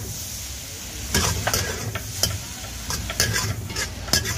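Metal spatula scraping and striking a wok while noodles are stir-fried over steady sizzling. There are about eight sharp clanks spread through, the loudest near the end.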